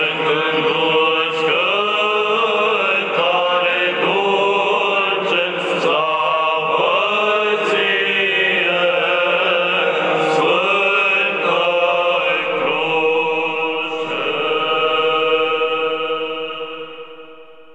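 Romanian Orthodox church chant: the hymn to the Holy Cross sung in Romanian, ending on its refrain "Slavă ție, Sfântă Cruce!". The last note is held and fades out near the end.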